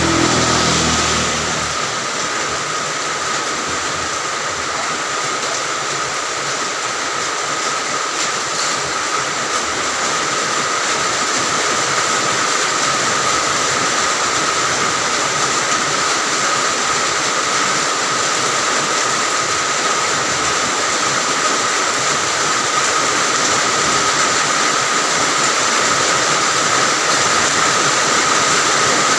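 Heavy rain falling steadily, a dense even hiss with a steady high tone running through it. A low engine hum from a passing vehicle fades away in the first couple of seconds.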